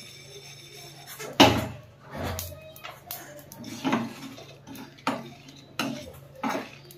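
Kitchen utensils and containers clattering, with about seven separate sharp knocks at uneven intervals; the loudest comes about a second and a half in.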